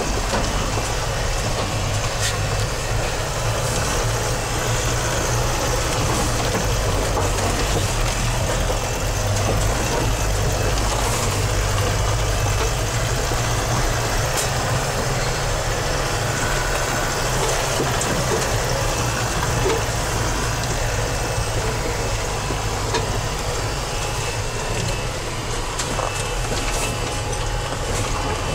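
A Mercedes 4x4 van's engine pulling steadily as it drives over a snowy track, heard from inside the cab as a constant low drone with body and tyre noise over it.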